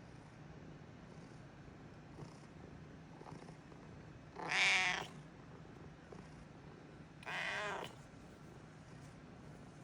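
Domestic cat meowing twice, short calls about three seconds apart, the first the louder.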